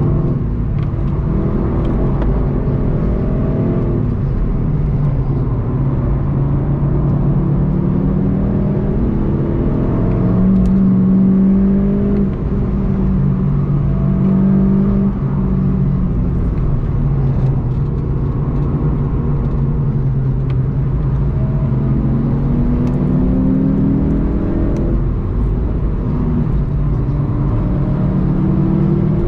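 VW Golf 7.5 GTI TCR's turbocharged four-cylinder engine heard from inside the cabin, pulling hard with the revs climbing again and again through upshifts. The revs hold steady about half-way through, then the engine pulls up through the gears once more in the second half.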